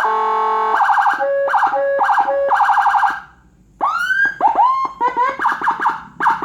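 Electronic vehicle siren module with Whelen HHS handheld tones, cycling through its sounds. It starts with a short steady horn tone, then quick repeated yelps. After a brief pause a little after three seconds in, a rising wail breaks into fast yelps.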